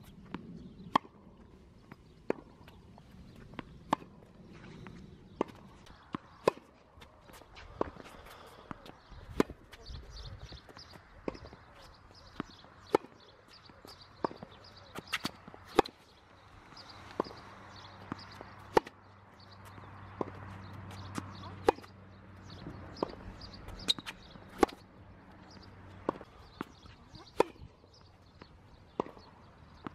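Tennis ball being struck by rackets and bouncing on a hard court during a rally, a sharp pop every second or so, with irregular spacing.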